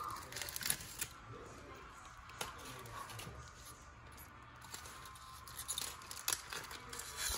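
Aluminium foil crinkling in irregular short crackles as it is handled and pulled back from around the rim of a pie pan.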